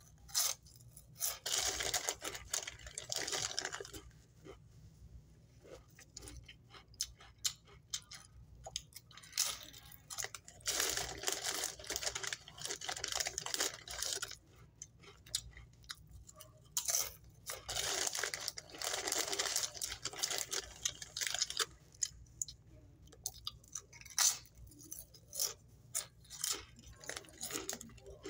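Doritos tortilla chips crunching as they are chewed, in three long spells of crunching with short crackles between, and the chip bag crinkling as a hand reaches in for more.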